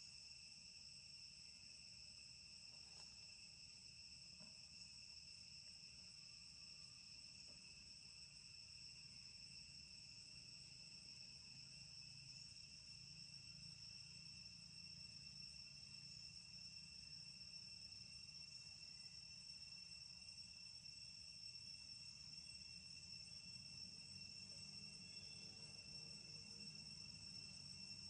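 Faint, steady insect chorus of crickets or similar: a continuous high trill that holds one pitch.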